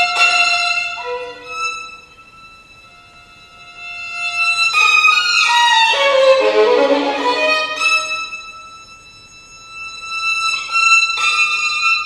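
Solo violin playing high held notes that thin out and go quiet about two seconds in, then a loud passage sliding down through many notes to low pitch between about five and seven seconds, before high held tones return near the end.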